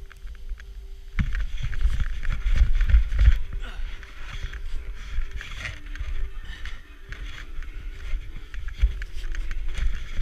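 Snowboard sliding and carving down a snow slope: a scraping hiss of the board on snow with wind buffeting the GoPro's microphone, growing louder about a second in.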